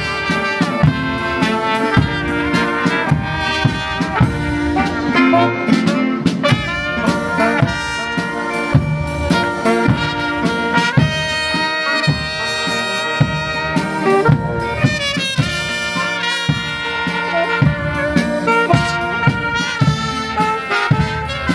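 A brass band playing a tune, trumpets and trombones over a steady drum beat.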